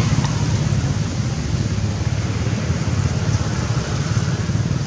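Steady outdoor background noise: a low rumble with an even hiss over it, with no distinct animal calls standing out.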